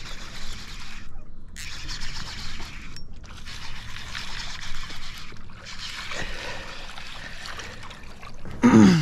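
Water splashing and trickling in uneven spells while a hooked fish is brought in at the surface. Near the end comes a loud, short, falling vocal sound.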